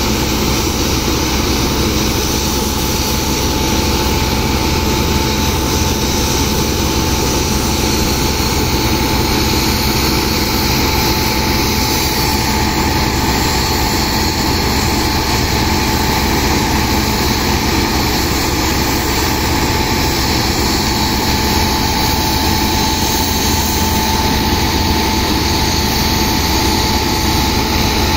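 The sand pump's engine running steadily, a constant drone, mixed with the rush of water jets from hoses washing sand into the pump's suction.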